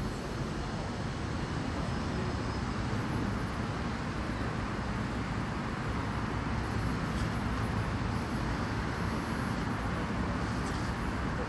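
Steady road traffic noise, an even low rumble with no single vehicle standing out.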